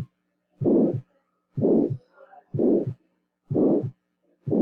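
Recorded heart sounds of aortic stenosis, beating regularly at about one beat a second. Each beat carries a short blowing mid-systolic ejection murmur between the first and second heart sounds.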